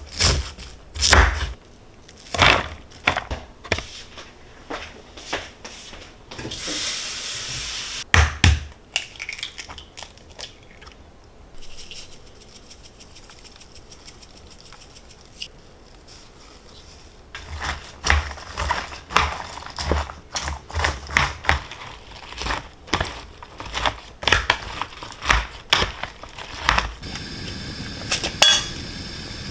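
A kitchen knife chopping food on a wooden cutting board in irregular runs of knocks, with a brief hiss about seven seconds in and a quieter stretch in the middle. Near the end a steady sizzle of food frying in a pan begins.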